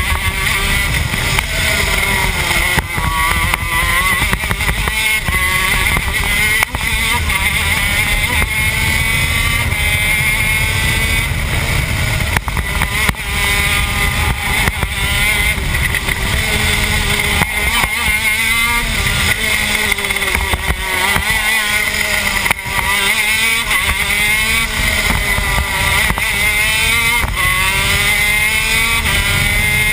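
TM K9c 125cc two-stroke shifter kart engine at racing speed, heard from on board. Its pitch rises and falls over and over as it accelerates up through the gears and drops back for the corners.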